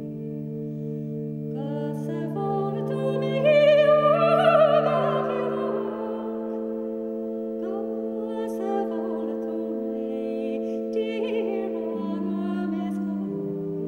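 Music: a solo voice singing with vibrato, loudest a few seconds in, over sustained low drone tones.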